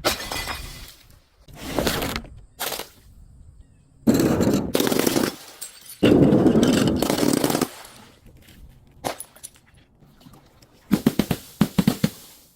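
A series of crunching, breaking impacts as brittle objects are smashed and crushed, with a quick run of sharp cracks near the end.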